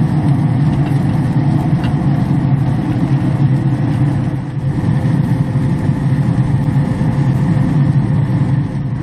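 Traeger pellet grill running with its lid open, a steady low drone from its fan, with a faint tap of a fork on the grate about two seconds in.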